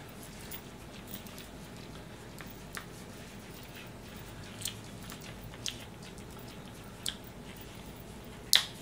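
Hands working snap fasteners on a leather strap cover: a few small scattered clicks, then a sharper snap-fastener click near the end.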